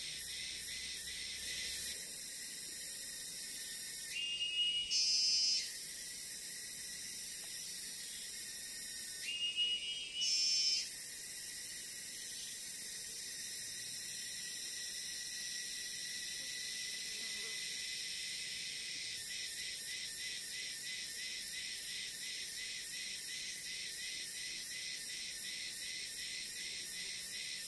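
Forest insect chorus: a steady, high-pitched shrill of crickets, pulsing about twice a second near the end. Twice, a few seconds in and again about five seconds later, a short whistled call steps up in pitch over it.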